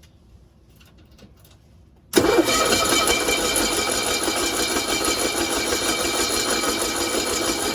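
1965 Cushman Truckster's engine starting abruptly about two seconds in and then running steadily.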